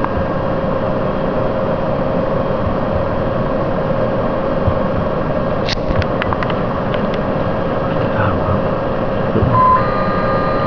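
Steady whirring hum of a soil-testing load frame's vertical drive jogging the loading frame upward. A few sharp clicks come a little past the middle, and a short beep near the end.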